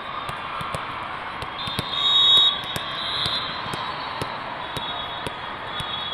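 Busy volleyball hall: a steady echoing din of voices and play, with irregular sharp smacks of volleyballs being hit and bounced on the courts. Shrill high tones cut through, loudest about two seconds in and again near the end.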